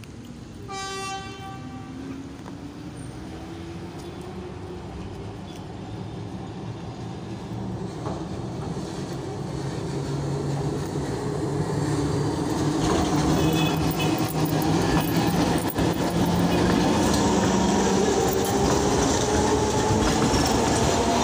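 Alexandria street tram approaching and passing close by, the rumble and clatter of its wheels on the rails growing steadily louder until it is alongside. A short horn blast sounds about a second in.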